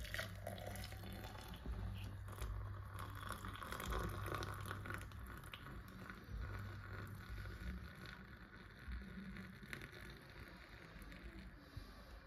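Freshly boiled water poured in a thin stream from a saucepan into a glass jug over a tea bag, a steady faint splashing as the jug fills.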